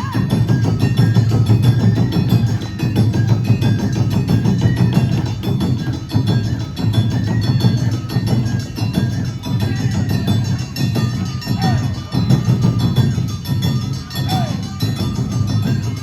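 Awa Odori festival band playing dance music: taiko drums and a clanging kane gong keep up a dense, steady beat under a high melody line.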